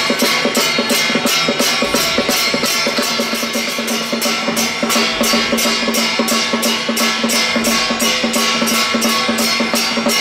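Loud procession percussion music from a temple parade troupe: fast, even drum and cymbal strokes, about five a second, over a steady held tone.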